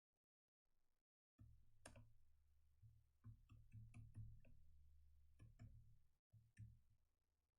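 Faint, irregular clicks of a computer keyboard being typed on, over a low steady hum; near silence overall.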